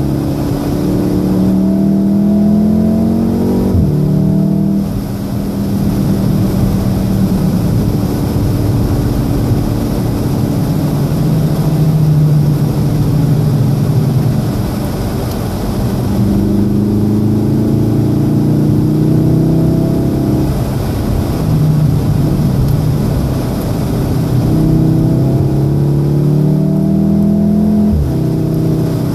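2014 VW Golf VII R's 2.0-litre turbocharged four-cylinder engine heard from inside the cabin, accelerating hard with its pitch climbing and dropping sharply at each upshift: about four seconds in, around twenty seconds in and near the end. A steady hiss of rain and wet-road spray runs underneath.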